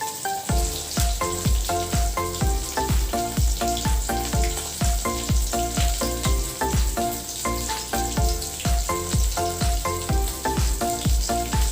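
Background music with a steady beat: a low thump two or three times a second under short, changing melodic notes, with a constant crackling hiss on top.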